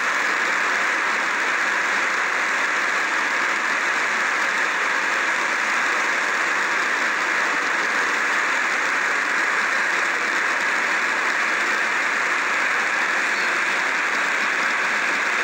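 Niagara's Horseshoe Falls pouring over its brink: a steady, even rush of falling water.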